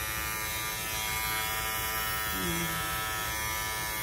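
Electric dog grooming clippers running with a steady buzz as they shave the hair between a small dog's paw pads.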